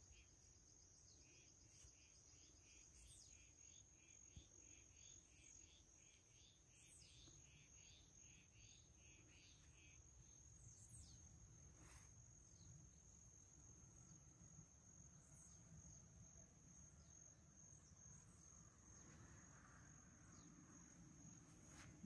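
Faint chorus of wild animals: a steady high-pitched insect trill throughout, a frog calling in a run of short repeated notes, about two a second, for roughly the first ten seconds, and a few scattered falling bird chirps.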